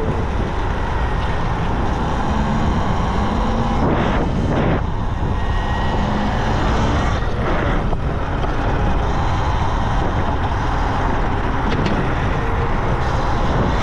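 Steady wind and road noise from riding a Talaria Sting R MX4 electric dirt bike: air rushing over the rider-mounted mic, with tyre and drivetrain rumble underneath.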